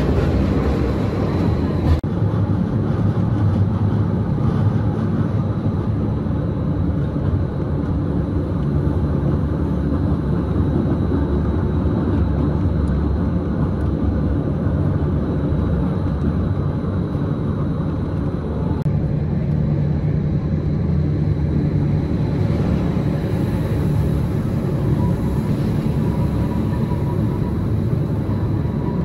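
Gornergrat Railway electric rack train running, heard from inside the carriage as a steady low rumble.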